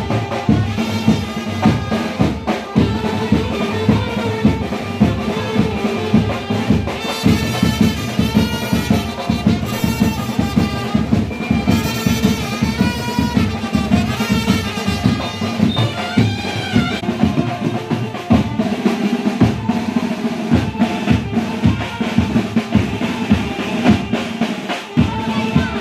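Music with fast, steady drumming under a melody line.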